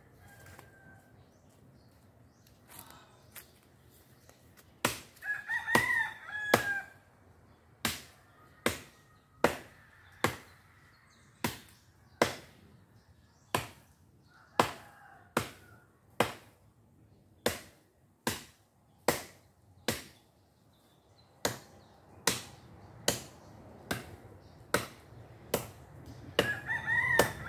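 Hand tool chopping into a tree trunk: sharp blows about every three-quarters of a second, starting about five seconds in, with a short break past the middle. A rooster crows twice, once early on the blows and again near the end.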